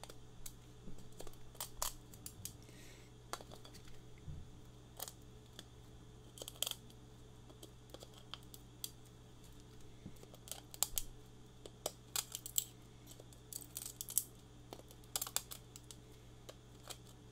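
Snips clipping leftover support material off the edge of a 3D print: scattered sharp snips, some single and some in quick runs of several, over a faint steady hum.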